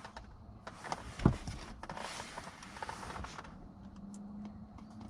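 Hand work on car wiring: rustling and small clicks as the wire ends and a connector are handled, with one sharp knock about a second in.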